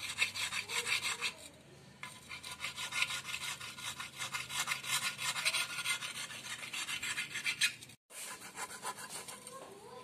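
A hand file rasping in quick back-and-forth strokes on a JAWA motorcycle's metal clutch cover, flattening dented, raised spots on the gasket face that were causing oil leaks by propping up the gasket. The strokes stop briefly about a second and a half in, then resume, and cut off abruptly near the end before starting again.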